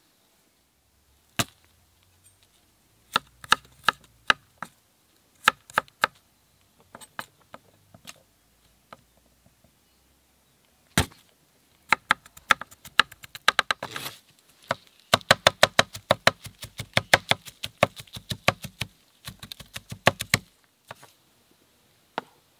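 Santoku knife chopping garlic on a wooden cutting board. A few separate knocks come first, then a fast, even run of chops on the board that lasts several seconds and stops shortly before the end.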